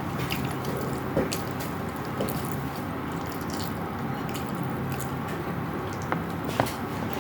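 Close-miked chewing and wet mouth sounds of someone eating, with a few soft clicks, over a steady low hum.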